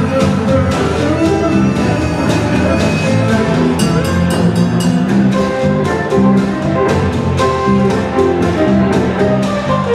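Live jug band playing an instrumental break: strummed acoustic guitar, electric guitar and bass over a steady snare-and-washtub beat.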